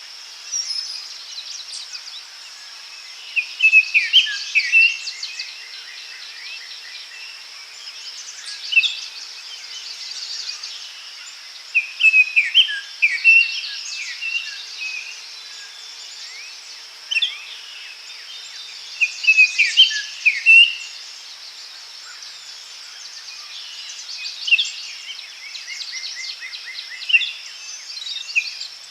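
Songbirds singing in bursts of quick chirping phrases every few seconds over a steady high-pitched insect buzz in a forest.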